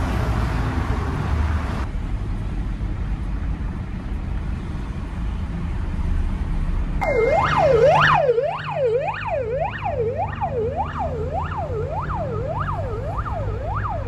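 An emergency vehicle siren starts about halfway through with a brief steady tone, then goes into a fast yelp, rising and falling about twice a second. Underneath it runs the low rumble of a van in slow traffic.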